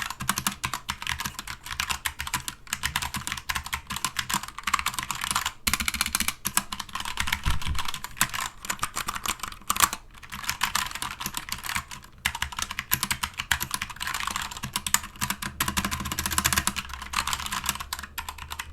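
Fast, continuous typing on a Keychron K2 V2 mechanical keyboard with Keychron Brown tactile switches and a plastic frame: many quick, soft key clacks, not clicky, with a few short pauses.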